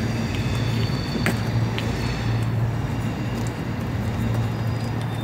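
A steady low motor hum with a few sharp clicks, about one and two seconds in.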